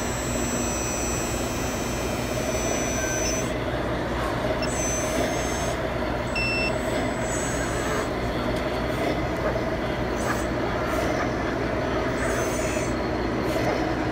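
Hydraulic radio-controlled dump truck tipping its bed, its small pump and motors running with a steady whine, with thin high electric whines that come and go. Crowd chatter and hall noise run underneath.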